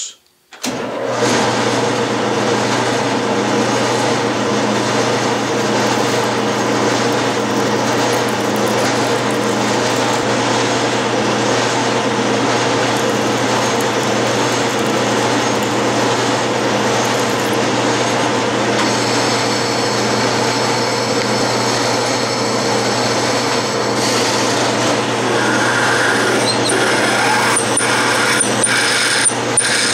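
Clausing metal lathe starting up about a second in and running steadily while a twist drill in the tailstock chuck drills into the spinning workpiece. Higher whistling tones join about two-thirds of the way through.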